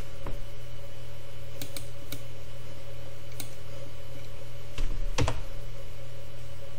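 Computer keyboard keys pressed a few times, scattered single taps with a short cluster about five seconds in, over a steady low hum.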